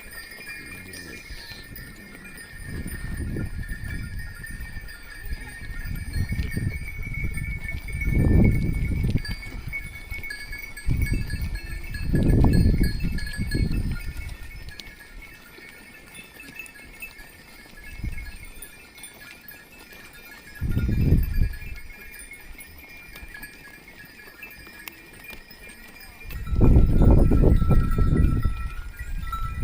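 Bells on a grazing flock of sheep and goats clinking steadily, with several low rumbles coming and going, the loudest near the end.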